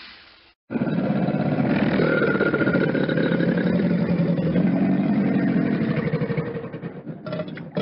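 Crocodile sound effect: a low, rough, rattling growl that starts suddenly after a brief silence, holds for about six seconds and fades away, then a short different growl just before the end.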